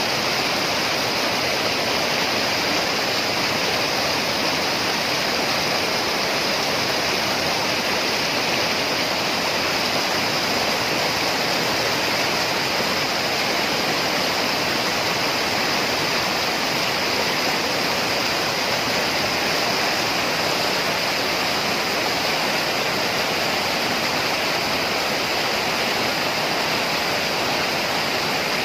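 Fast mountain stream rushing over boulders in white-water rapids, a steady, unbroken roar of water.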